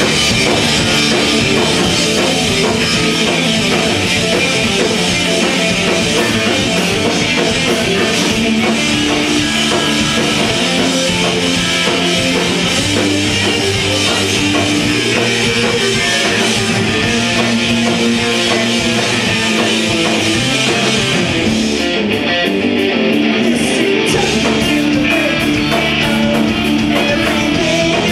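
Progressive rock/metal band playing live and loud: distorted electric guitars, bass and drum kit with cymbals. Near the end the cymbals and kick drum drop out for about two seconds, leaving the guitars, then come back in.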